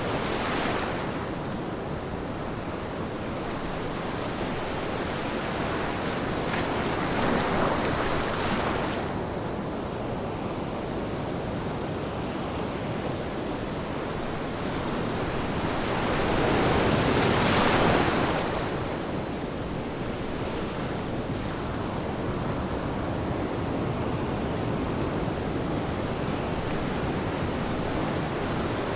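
Ocean waves breaking on a beach, a steady wash of surf with louder breakers at the start, around 7–9 seconds in and around 16–18 seconds in.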